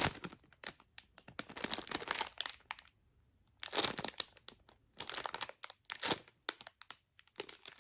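Plastic packaging bag crinkling as a squishy inside it is turned over and handled, in bursts of crackling with a short pause about three seconds in.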